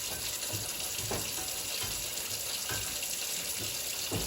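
Kitchen tap running steadily into a sink, with short clunks of dishes being handled every second or so.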